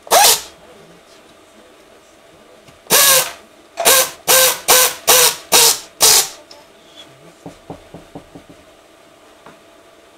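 Handheld electric screwdriver running in short bursts as it drives the generator cover bolts: one burst at the start, another about three seconds in, then six quick bursts in a row, each with a motor whine. Faint light clicks of tools being handled follow.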